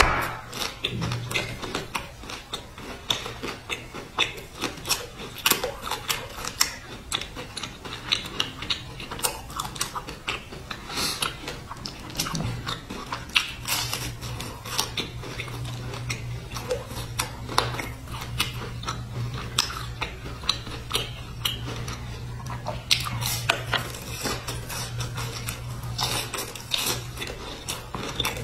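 Close-miked biting and chewing of crisp biscuit sandwiches with a dark rice filling: a dense, irregular run of crunches and clicks. A low steady hum comes up under it about halfway through.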